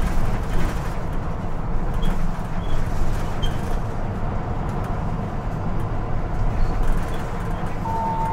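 Mitsubishi Fuso TKG-MK27FH city bus heard from inside the passenger cabin: a steady low drone of its diesel engine and running gear. A short steady beep sounds near the end.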